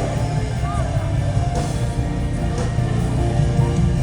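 Music with guitar and a strong, steady bass line.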